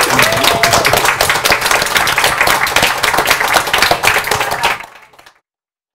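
A small audience applauding: many hands clapping quickly and densely, fading out about five seconds in.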